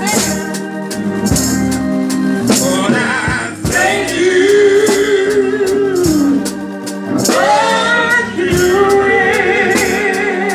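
Gospel singing into microphones through a PA, a man's lead voice joined by a woman's, with organ holding chords underneath and a tambourine keeping a steady beat.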